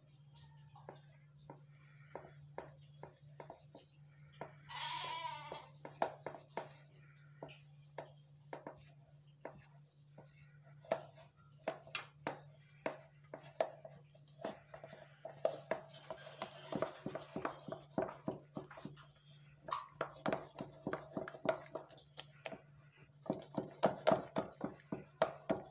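Wooden utensil beating butter and icing sugar in a plastic bowl: a run of knocks and scrapes, coming faster and louder near the end. About five seconds in, a short wavering high call sounds once, over a steady low hum.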